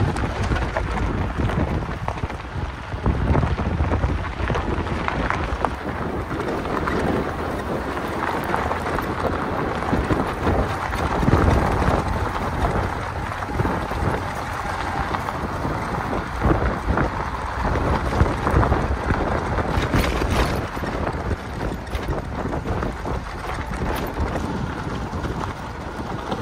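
Wind buffeting the microphone over the rumble of a vehicle driving on a gravel track.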